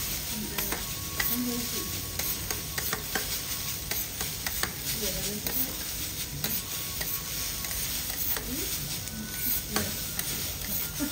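Garlic rice sizzling on a steel teppanyaki griddle while two metal spatulas chop and scrape through it, with frequent sharp clicks of the blades striking the hot plate.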